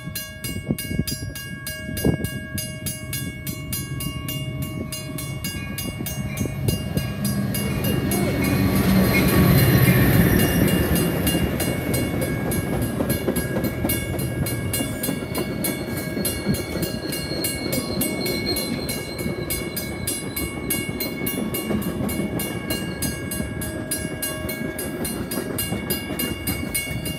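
Metra commuter train led by an EMD F40PH diesel locomotive passing close by. The engine is loudest about a third of the way in as the locomotive goes past, then the bilevel coaches roll by with a steady rumble of wheels on rail.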